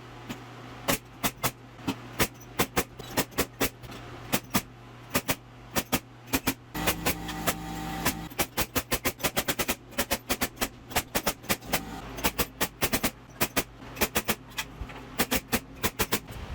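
A rapid, irregular series of sharp knocks, several a second and bunching closer together past the middle, over a steady low hum.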